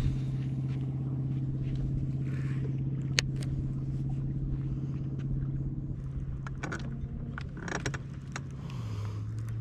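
Bow-mounted electric trolling motor running with a steady hum, dropping to a lower pitch about nine seconds in as its speed is turned down. A few sharp clicks and knocks from reel and tackle handling sound over it, the loudest about three seconds in.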